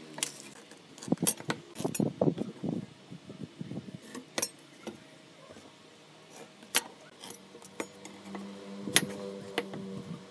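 Metal measuring tools, an aluminium square and a steel rule, clicking and knocking as they are set down and shifted on a pine board on a wooden workbench. There is a quick run of knocks in the first few seconds, then single sharp clicks spaced a few seconds apart.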